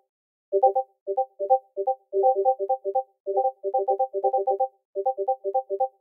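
Discord message notification ping, a short few-note electronic chime, played again and again in quick, irregular clusters with the pings often overlapping.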